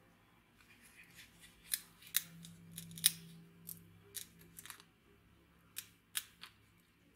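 A thin clear plastic strip clicking and scraping against the metal end of a small steel tube as it is worked into place by hand: about a dozen sharp, irregular clicks.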